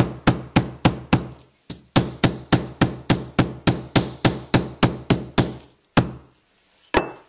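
Hammer striking a moistened leather loop stretched over a loop stick, blocking the loop into shape. Quick even blows about four a second, a brief pause about a second and a half in, then two last single blows near the end.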